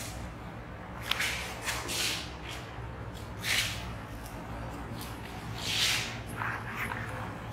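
Felt whiteboard eraser rubbed across a whiteboard in a series of short, irregular swishing strokes, about half a dozen, the loudest a little under six seconds in.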